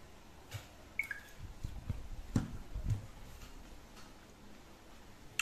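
Small handling and eating noises: a few light clicks and taps, with soft low thumps bunched in the middle and a sharp click at the very end.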